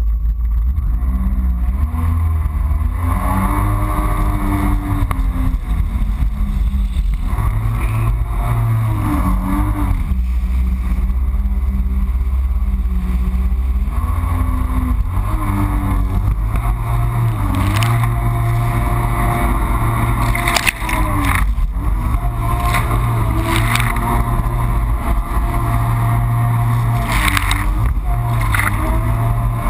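Yamaha FX HO Cruiser jet ski's four-stroke engine running hard, its pitch rising and falling again and again as the throttle is worked, under heavy rumble of wind and water. Short sharp knocks come in the second half.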